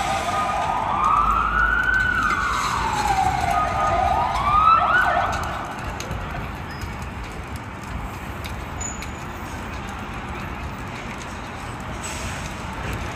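Fire engine siren wailing: the pitch climbs, falls and climbs again over the first five seconds, then drops away into a steady background din.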